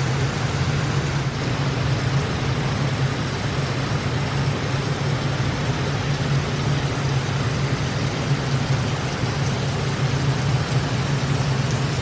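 Water fountain running: a steady rush of water with a constant low hum underneath.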